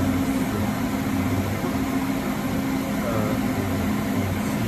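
Electric motor running on a Yaskawa variable-frequency drive under test, a steady low hum.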